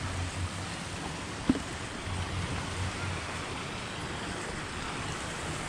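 Steady outdoor noise with wind rumbling on the microphone, with one sharp knock about one and a half seconds in.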